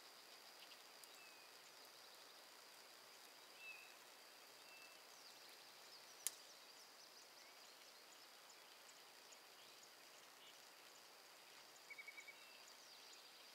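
Near-silent outdoor quiet with faint scattered bird chirps and a thin steady high tone. There is one sharp click about six seconds in, and a short run of quick chirps near the end.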